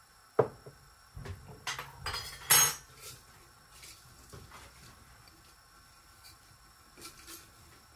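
A few clinks and knocks of kitchen utensils against a metal frying pan, with one louder clank about two and a half seconds in, then only faint ticks.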